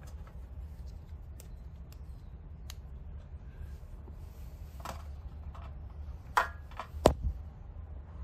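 Scattered small clicks and knocks of parts and tools being handled during a brake caliper overhaul, over a steady low hum. Two louder knocks come near the end.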